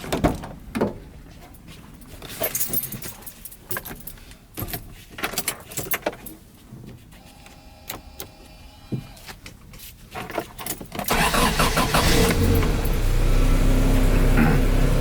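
Scattered clicks and jangles, like keys being handled, then about eleven seconds in a car engine comes on and runs steadily.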